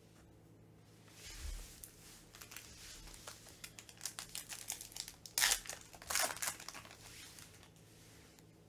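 Foil trading-card pack being crinkled and torn open by hand, a run of crackly rustles with the loudest rips about five and a half and six seconds in.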